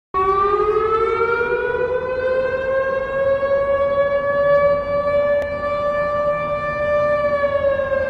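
Estonian public warning siren sounding one long tone. It comes in suddenly, rises in pitch over the first few seconds, holds steady, and begins to fall near the end.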